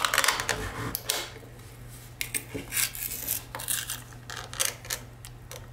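Thin aluminium pull-tab lid of a sardine tin being peeled back by hand: a run of small, irregular metallic clicks and crinkles.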